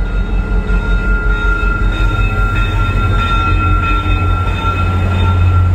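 VIA Rail EMD F40PH diesel-electric locomotive pulling into the station and passing close by, its engine a loud low rumble that grows heavier near the end as the locomotive draws alongside, with a steady high-pitched tone over it.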